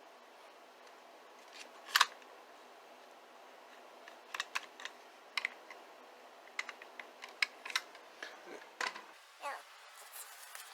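Sharp clicks and taps of small plastic items being handled: HO-scale model locomotives and their packaging being picked up, turned over and set down. One loud click comes about two seconds in, then a run of lighter clicks, and a few brief rubbing squeaks near the end.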